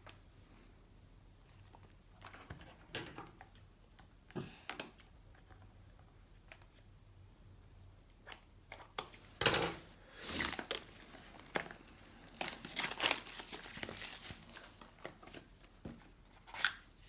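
A sealed trading-card packet being opened by hand: the wrapper crinkling and tearing. Scattered small rustles and clicks come first, then about halfway through a dense spell of crinkling, with one last sharp rustle near the end.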